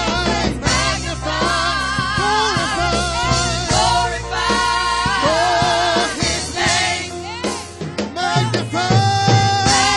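Gospel music: a singer with wavering vibrato over a band with a steady bass line.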